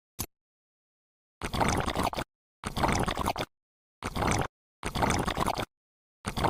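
Wet concrete mix being worked in five short wet, gritty bursts, each cut off abruptly by edited silence, after a single short click about a quarter second in.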